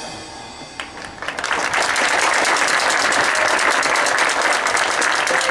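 Audience applause that breaks out about a second in and swells to a steady, dense clapping, following the fading tail of a marching band's held brass chord.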